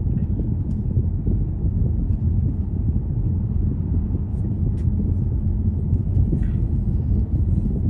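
Steady low rumble of a car driving, road and engine noise.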